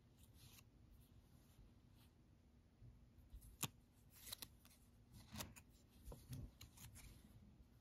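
Faint handling noises from a small plush toy and its tags being turned over in the fingers: quiet at first, then a string of soft clicks and rustles from about three seconds in, with one sharper click just after that.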